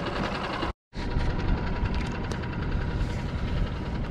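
Small boat's engine running steadily at tick over, with a short break in the sound just under a second in.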